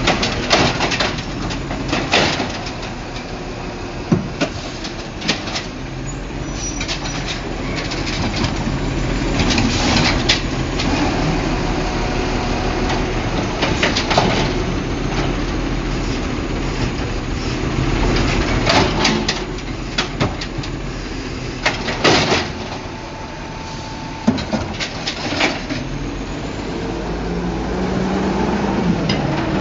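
Automated side-loader garbage truck with an Amrep Octo arm, its engine running steadily while the hydraulic arm lifts carts and tips them into the hopper. Repeated bangs and clunks come from the carts being shaken out and set back down, and the engine swells louder at times as the arm cycles.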